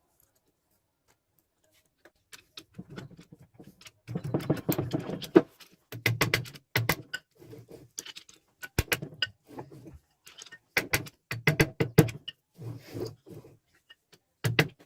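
Metal clinks and knocks of UAZ gearbox parts being handled, with several short stretches of rasping, scraping noise in between.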